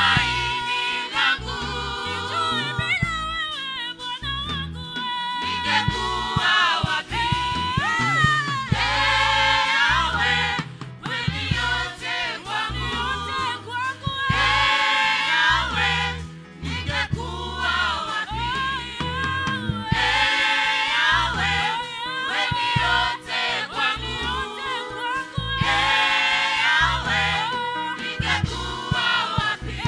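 Swahili gospel praise song: several voices singing together over instrumental backing with a steady beat.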